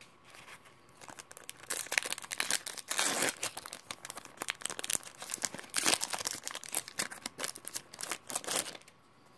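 Foil wrapper of a Pokémon Sun & Moon booster pack crinkling and tearing as it is pulled open by hand, a run of crackles starting about a second in and stopping near the end.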